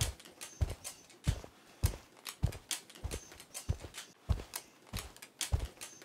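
Footsteps on hard pavement at a steady walking pace, about three sharp steps a second.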